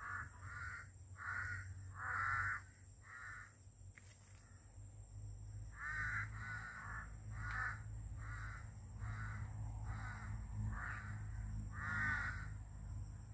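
Crows cawing over and over: a run of about five caws at the start, then after a short pause a longer run of about nine.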